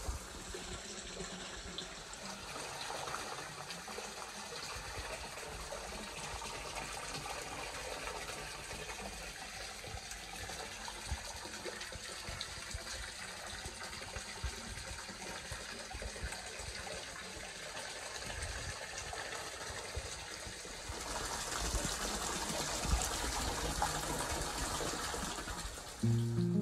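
Steady gush of running water pouring into a hot spring soaking pool, a little louder near the end.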